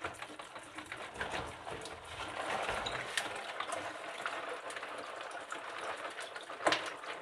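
Water pouring from a partly frozen 2-litre plastic bottle and splashing into a stainless-steel sink drain. It is the liquid left around ice that has frozen solid inside the bottle. The flow grows louder about two seconds in, with scattered clicks and a sharper knock near the end.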